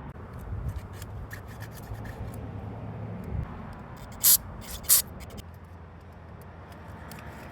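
Small carburetor parts being handled and scraped during cleaning, a rubbing, scratchy sound over a low hum, with two short loud hisses about four and five seconds in.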